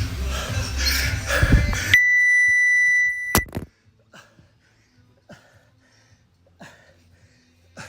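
Music cuts off as an electronic timer gives one long, steady beep of about a second and a half, ended by a sharp click. A few faint knocks follow in the quiet.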